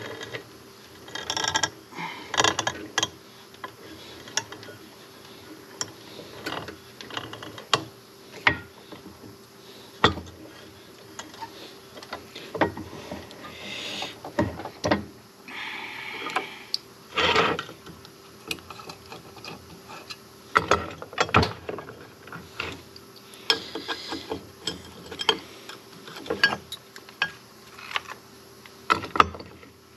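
Hand drilling a brass jet used as an oil restrictor in an engine block: irregular metallic clicks, knocks and short scraping spells from the drill and bit, over a faint steady hum.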